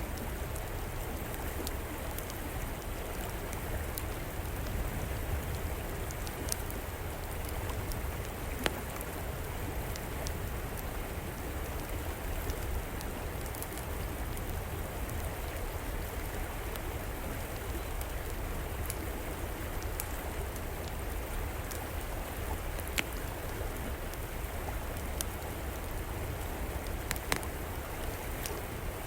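Steady rushing flow of river water, with the occasional sharp crackle and pop of a wood fire burning in an outdoor fireplace.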